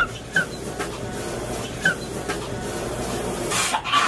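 Stifled laughter: a few short, high squeaks, then a breathy burst of laughter near the end.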